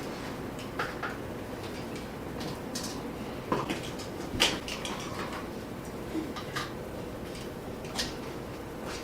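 Scattered small clicks, knocks and rustles of plastic toy packaging and doll accessories being handled, with a few sharper clicks in the middle.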